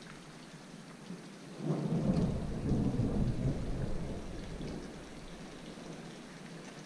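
Distant thunder: a low rumble that swells about a second and a half in and dies away over the next few seconds, over a faint steady hiss.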